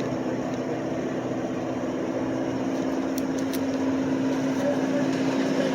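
Off-road vehicle's engine running steadily at low revs as it creeps forward on the trail, a little louder in the second half.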